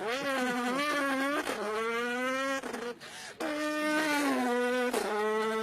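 A man imitating a racing car's engine with his voice: revving notes that climb in pitch and break off as if changing gear, a short pause about three seconds in, then a long held note. The listeners take the imitation for a Volkswagen Polo rally car.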